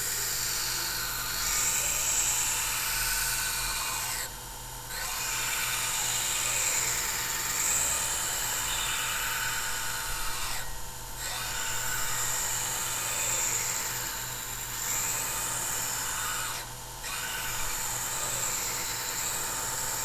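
Vortex precision belt grinder hollow grinding a steel folder knife blade: a steady, high grinding hiss as the blade runs against the belt over the motor's low hum, breaking off briefly three times as the blade is lifted between passes.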